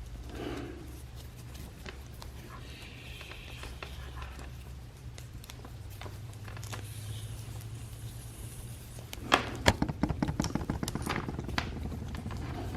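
Handling noise of a charging cable being fiddled with: faint scattered clicks and rustles over a low steady hum. About nine seconds in comes a quick run of clicks and knocks.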